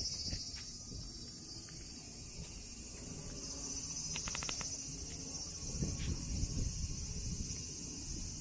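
Steady high-pitched drone of cicadas singing in the summer heat, with low rumbling underneath that swells about six seconds in.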